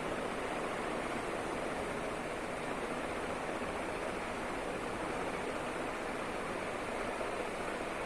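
National F-560A1 ceiling fan running at a steady speed, its blades giving an even rush of air.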